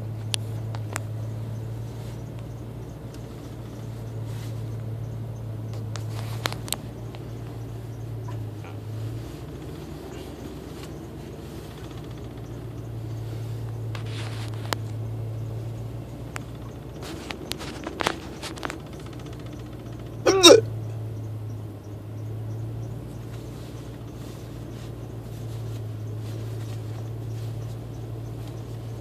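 A man hiccuping, short sharp catches in the throat several seconds apart, a few close together around eighteen seconds in and the loudest, voiced one about twenty seconds in.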